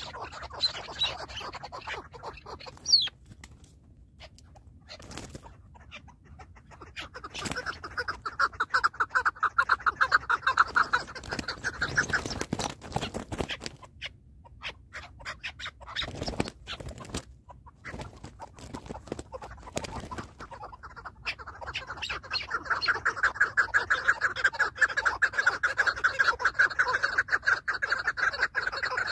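Chukar partridges calling in rapid runs of clucking notes, one bout about eight to twelve seconds in and a longer one starting about twenty-one seconds in. A brief sharp sound comes about three seconds in.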